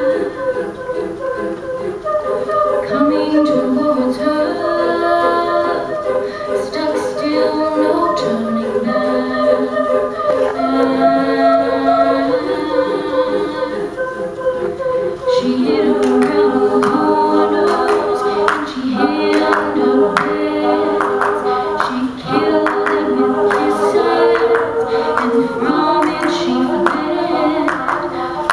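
All-female a cappella group singing live: a female soloist over sustained backing harmonies. About halfway through, a steady, sharp percussive beat comes in under the voices.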